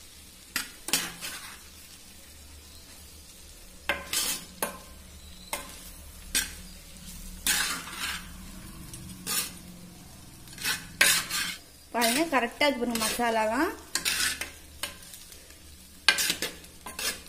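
Fried rice sizzling in a clay pot while a utensil scrapes and knocks against the pot in irregular strokes as the rice is stirred gently round the edges. A brief voice-like sound comes in about twelve seconds in.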